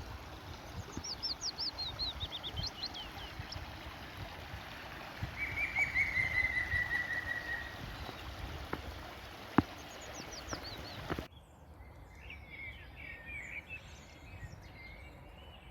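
Wild songbirds singing outdoors: quick descending trills and a long, slightly falling whistled note, over a low steady background rumble. About two-thirds of the way through the sound cuts abruptly, and fainter chirps carry on.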